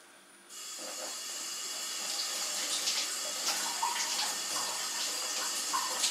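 Kitchen tap turned on about half a second in, water running steadily into the sink with small splashes.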